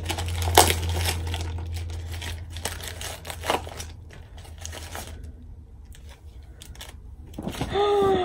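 Packaging being unwrapped by hand: crinkling and rustling with sharp crackles, easing off after about four seconds. A short voiced sound comes near the end.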